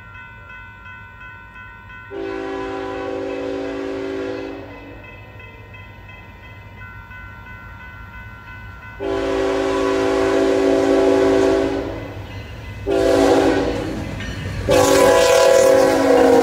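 Union Pacific GE Evolution-series (Gevo) locomotive's air horn sounding the grade-crossing pattern as it approaches: two long blasts, one short, then a final long blast that is still sounding as the locomotive reaches the camera. Rumble of the passing train rises near the end.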